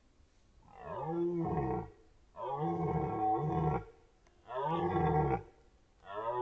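Red deer stag roaring in the rut: a run of deep, drawn-out roars, each about a second and a half long, coming about every two seconds. Three full roars are followed by a fourth that begins near the end.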